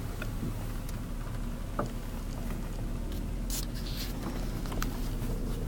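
Car driving slowly over a rough farm lane, heard inside the cabin: a steady low rumble with scattered light clicks and rattles.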